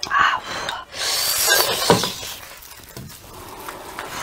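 Chili-garlic sauce splattering onto a braised lamb's head, then the meat being torn apart by hands in plastic gloves: two bursts of wet crackling and squelching, with a couple of sharp snaps about a second and a half in. It is quieter toward the end.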